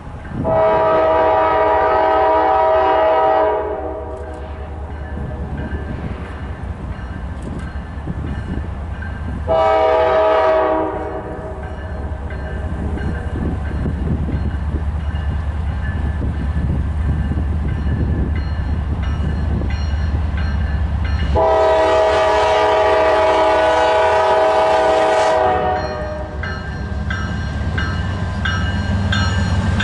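Locomotive air horn sounding a chord three times: a blast of about three seconds, a short one of about a second and a half, then a long one of about four seconds. The steady low rumble of the passing train runs underneath.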